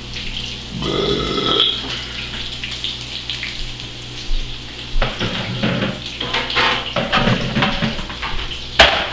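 Water running from a kitchen tap into the sink, with dishes and utensils clattering from about halfway and a sharp knock near the end.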